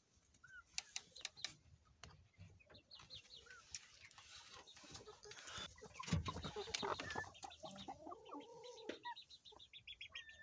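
Chickens clucking softly and giving short chirps, among scattered clicks and rustles. A few low calls come about eight seconds in, followed by a quick run of high peeps near the end.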